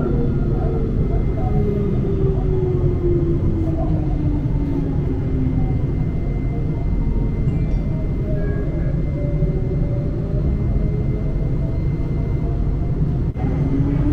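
Electric tram running, heard on board: a steady low rumble of wheels on rails under the whine of the traction motors. The whine falls in pitch over the first several seconds as the tram slows, then starts to rise again near the end as it speeds up.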